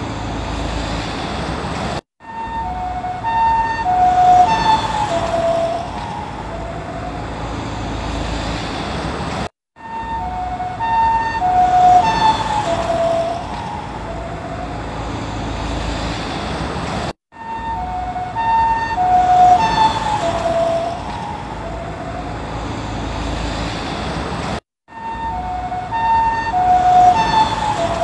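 Japanese ambulance's two-tone "pee-po" siren passing by, its alternating high and low notes dropping in pitch as it goes past (the Doppler effect), over road noise. The same roughly seven-and-a-half-second passage repeats four times, with a brief gap between repeats.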